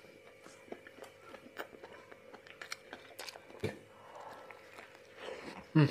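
A person chewing and biting into a soft burger close to the microphone: small wet mouth clicks, with a louder bite about three and a half seconds in and another thump near the end.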